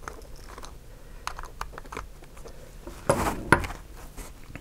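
Small clicks and scrapes of a small Phillips screwdriver working the body screws of a model locomotive, with a louder clatter and a sharp click about three seconds in.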